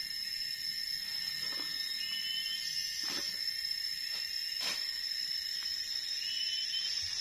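Steady forest insect drone held on two high pitches, with scattered sharp snaps and crackles of dry leaf litter and twigs being handled and stepped on in the undergrowth.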